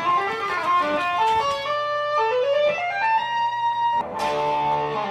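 Background music: a plucked guitar playing a melody of single notes, then a chord struck about four seconds in that rings on.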